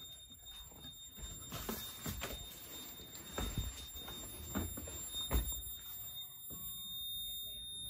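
Notifier NFS2-640 fire alarm control panel's built-in piezo sounder giving one steady high-pitched tone: the panel is in alarm, with the releasing system in pre-discharge. Several dull knocks sound under it.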